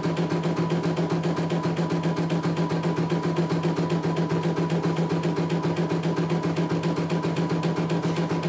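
CNY E900 computerised embroidery machine stitching a design: a steady motor hum under a fast, even clatter of needle strokes, several a second.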